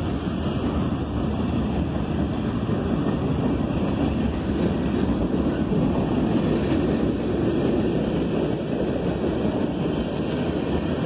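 Freight cars of a CSX mixed freight train, gondolas and tank cars, rolling past: a steady rumble of steel wheels on the rails.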